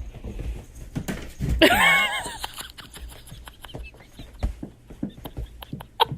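A single wavering animal cry about a second and a half in, amid a run of irregular taps and knocks.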